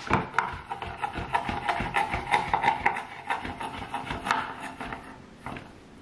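Chef's knife slicing a banana into rounds on a wooden cutting board: quick repeated taps of the blade hitting the board, several a second, stopping about five seconds in.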